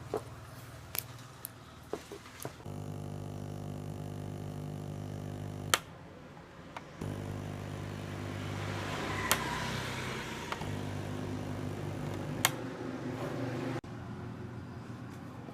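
Electric motor humming steadily. It is switched on about two and a half seconds in, cut off a little before six seconds, started again about a second later, and stopped near the end. Sharp clicks and taps fall in between.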